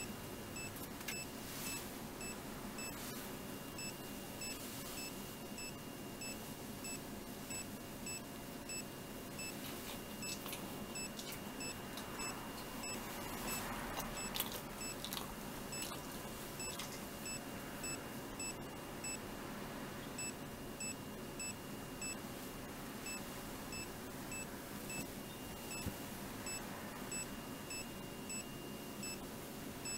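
Handheld SAN-EI ECG monitor giving a short high-pitched beep with each detected heartbeat of a boxer dog, about two beeps a second.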